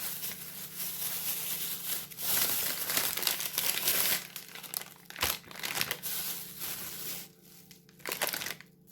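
Packet of nuts crinkling and rustling as it is handled and opened, with one sharp knock about five seconds in. It goes quieter near the end.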